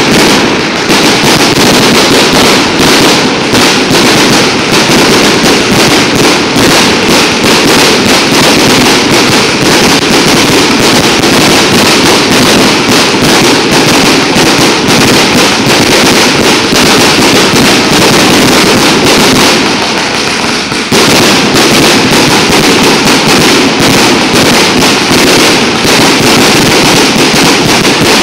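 A 360-shot salute barrage cake firing: a rapid, unbroken string of loud bangs. It lets up briefly about two-thirds of the way through, then carries on.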